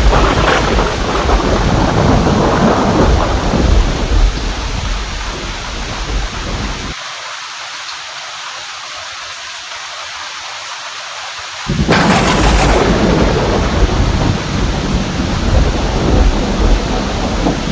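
Heavy steady rain with rolling thunder. The rumble drops away abruptly about seven seconds in, leaving only the rain. About twelve seconds in a sudden sharp thunderclap sets off another long rumble.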